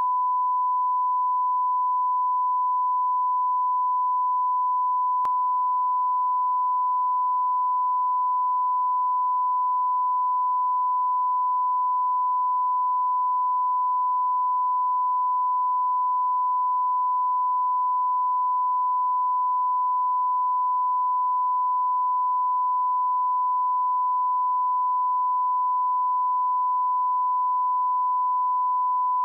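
Broadcast line-up tone: a single steady 1 kHz sine tone played with SMPTE colour bars, held unbroken at one pitch and level.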